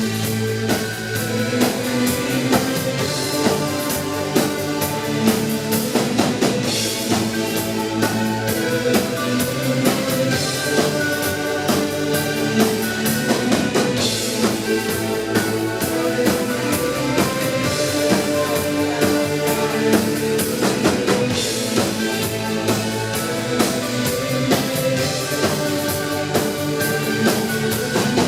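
Live electronic rock band playing an instrumental stretch: a steady, driving beat from two drum kits, with kick and snare, under loud held chords.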